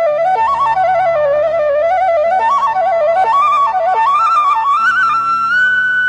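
Bansuri (Indian bamboo flute) playing a slow, ornamented, meditative melody that climbs to a long held high note near the end, over a steady low sustained backing.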